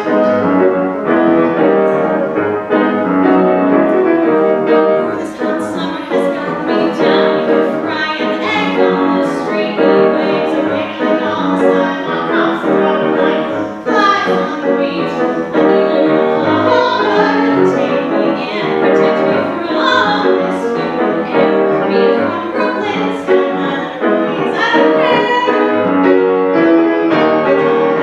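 Grand piano playing a song accompaniment, starting right at the outset, with a woman's singing voice joining over it about five seconds in.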